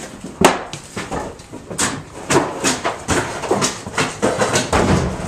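Demolition work on fire-charred wood framing: an irregular run of sharp knocks, cracks and clattering debris as the charred timber is broken out and thrown down.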